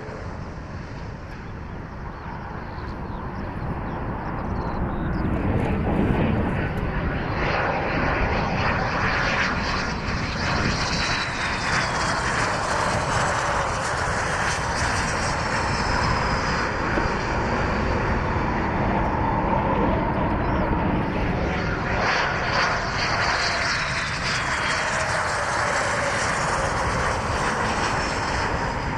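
Military jet aircraft engine noise: a loud rush that builds over the first few seconds and then holds, with whining tones that fall in pitch as the jet passes.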